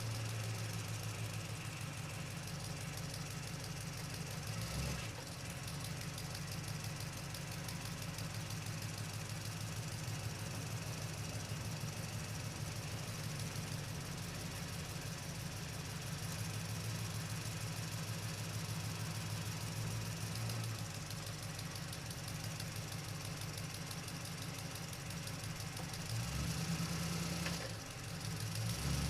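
Truck engine running steadily at low speed, with a fast even beat. Its sound shifts briefly about five seconds in, and near the end it swells, then drops.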